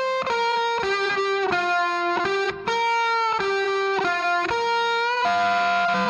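Background music: a distorted lead electric guitar playing a slow melody one sustained note at a time, changing note about every half second, with a brief dropout about two and a half seconds in.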